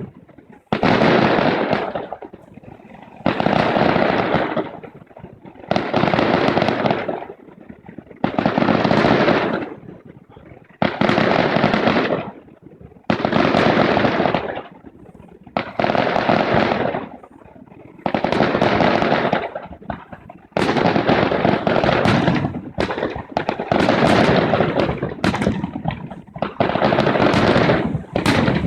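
Fireworks display with aerial shells going off one after another, about every two and a half seconds. Each is a sudden loud burst lasting a second or two, and they come closer together near the end.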